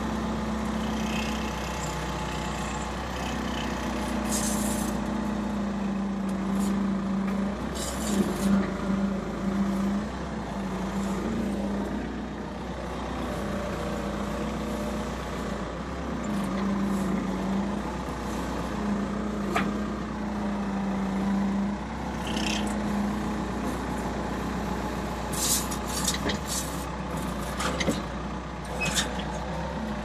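Skid steer loader engine running steadily, with a steady whine that comes and goes in stretches of a second or more, the load on the machine changing as the forks are worked. Short clatters and hisses break in here and there, most of them near the end.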